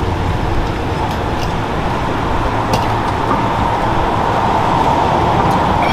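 Steady city street traffic noise, a vehicle running close by, swelling slightly in the second half.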